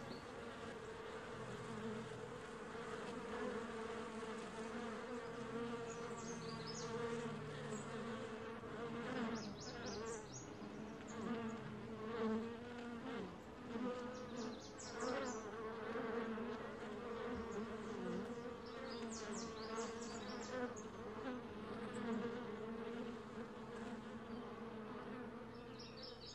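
A colony of honeybees buzzing in a steady hum that wavers slightly in pitch.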